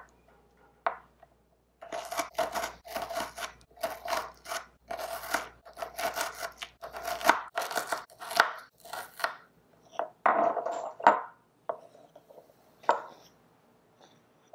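Tiny knife quickly chopping a small red onion on a miniature wooden cutting board: a rapid run of knife taps for several seconds, followed by a few separate taps.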